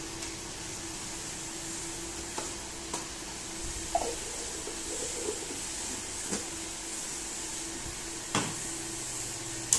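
A few light clicks and knocks of plastic feeding-bottle parts being handled and fitted together, the loudest about eight seconds in, over a steady background hum with a faint hiss.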